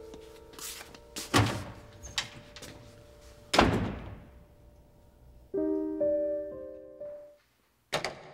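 Soft piano chords from the soundtrack music, broken by three dull thuds about a second and a half, three and a half and eight seconds in, the middle one the loudest.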